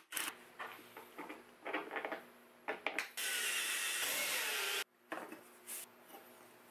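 Cordless drill running for about a second and a half as it drills into a wooden board, its whine falling slightly in pitch, then stopping abruptly. Before and after it, light clicks and knocks of tools being handled and set down on the wooden table.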